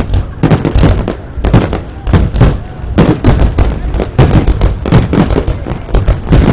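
Fireworks display: a dense, continuous barrage of aerial shells bursting, several loud bangs a second overlapping one another.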